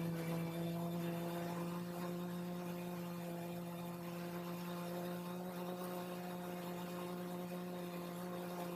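A multirotor drone's motors and propellers hum steadily at a constant pitch while it hovers.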